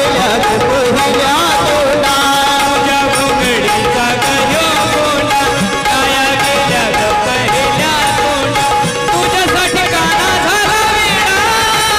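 A man singing a melodic, ornamented vocal line through a microphone, accompanied by a harmonium's held chords and a hand drum keeping the beat.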